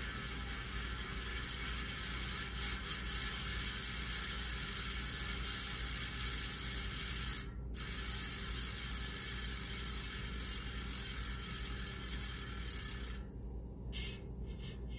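Alto Cycling rear hub freewheeling: its 48-tooth drive ring makes a steady ratcheting buzz. The buzz breaks off briefly about halfway and stops near the end, followed by a couple of short clicks.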